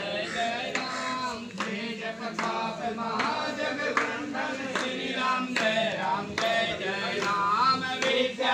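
A group of people chanting a Hindu devotional chant together in a steady sung rhythm.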